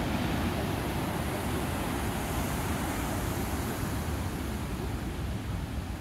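Big ocean surf breaking and washing in: a steady, even rush of wave noise.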